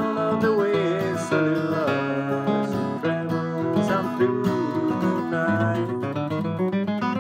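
Steel-string acoustic guitar flatpicked in a bluegrass rhythm, bass notes and strummed chords with some notes bending in pitch.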